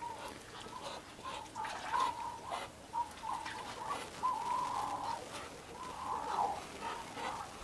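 Muscovy ducks giving soft, short cooing calls at one pitch, off and on, a couple of them drawn out longer.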